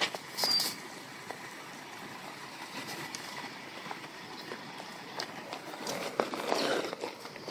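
Steady wash of rain and running floodwater outdoors, with scattered footsteps and scuffs on wet pavement, a short high squeak about half a second in and a louder scuffing near the end.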